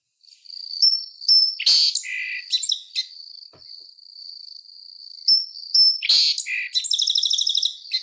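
Song sparrow singing: two songs, each opening with a few clear notes and ending in a fast, rattling trill. A thin, steady high tone holds for about two seconds between them.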